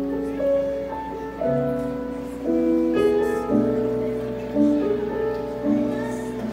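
Keyboard playing slow, held piano chords, the chord changing every half second to a second, as a song's introduction.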